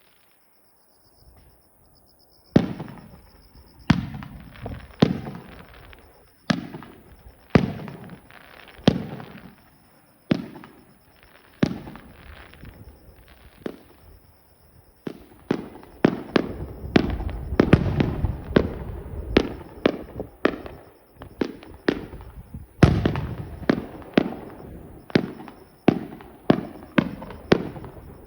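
Distant aerial fireworks bursting. After a couple of quiet seconds come single booms about a second apart, each trailing off in a rolling echo. They thicken into a rapid barrage partway through, then one especially loud bang, then steady bursts again.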